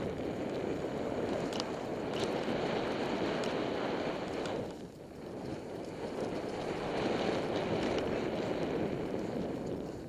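Skis running fast through chopped-up powder snow, a steady rushing hiss mixed with wind buffeting the body-worn camera's microphone; the noise dips briefly about five seconds in, and a few faint clicks come in the first seconds.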